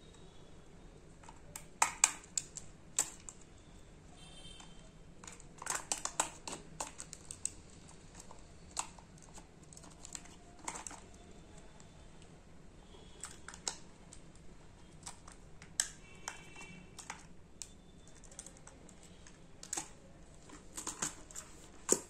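Irregular clicks and taps of hard plastic as a toy RC stunt car is handled and turned over and its battery pack is fitted, some coming in quick clusters.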